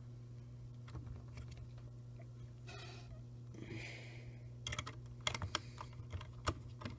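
Small clicks and taps of a tiny jeweller's screwdriver and screws on the camcorder's plastic and metal chassis as screws are driven in, a run of sharp clicks coming in the second half, over a steady low hum.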